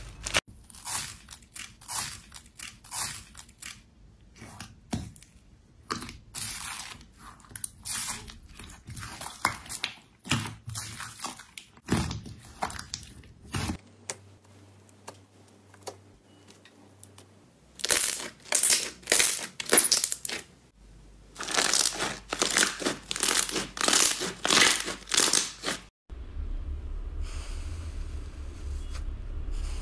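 Hands working slime: plastic film crinkling as it is pressed over a mound of slime, then sticky slime crackling and popping in quick bursts as fingers poke and pull it. Near the end it changes to a soft, steady rustle as a hand strokes fluffy slime.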